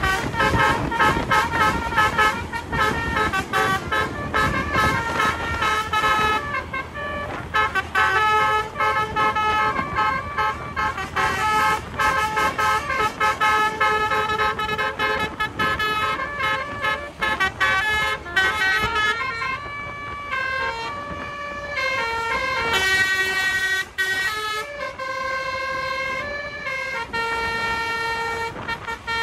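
A bus's basuri (telolet) musical air horn playing a melody of stepped notes, over road and engine noise.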